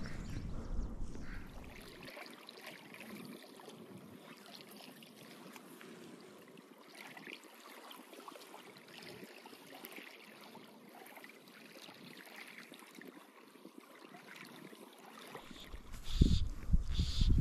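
Shallow sea-loch water lapping and trickling at a stony shoreline, faint through most of it. Near the end, wind buffets the microphone with a low rumble.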